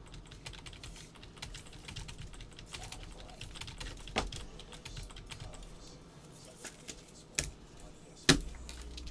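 A run of light clicks and taps, with a few sharper clicks about four, seven and a half and eight seconds in.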